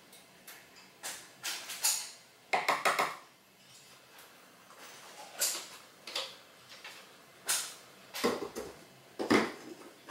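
Scattered clicks, taps and knocks from a vanilla extract bottle and a teaspoon being handled: the bottle is capped and set down on the countertop. The loudest knocks come near the end.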